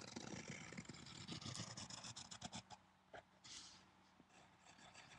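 Graphite pencil scratching faintly on paper as a curved line is drawn, with a brief hiss about three and a half seconds in.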